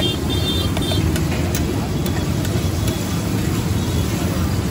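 Butter frying on a flat iron tawa while a metal spatula stirs and taps the pan about twice a second, over a steady low rumble.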